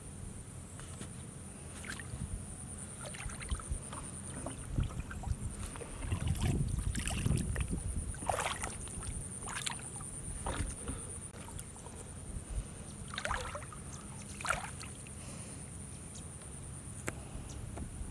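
Water splashing and sloshing in shallow water, with a cluster of sharper splashes through the middle, over a steady high-pitched hum.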